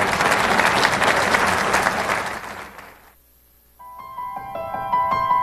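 Audience applauding, fading out about three seconds in. After a brief near silence, piano music begins.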